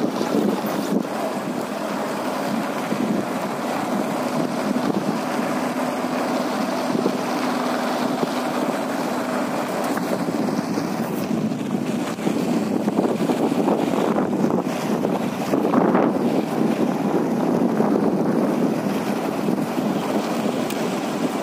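Wind buffeting the microphone: a steady rushing noise with no break.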